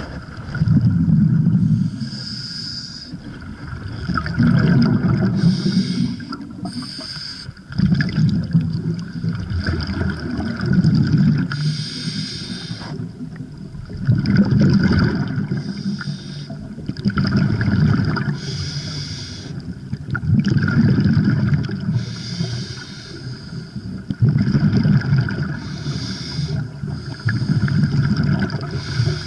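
Scuba diver breathing through a regulator underwater: a hiss on each inhale, then a low rumble of exhaust bubbles on each exhale, repeating about every three to four seconds.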